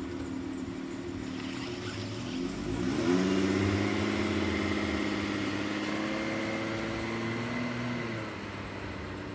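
Airbus A330-300 airliner's Rolls-Royce Trent 700 jet engines passing overhead: a steady drone with humming engine tones and a faint whine. It swells about three seconds in and eases off about eight seconds in.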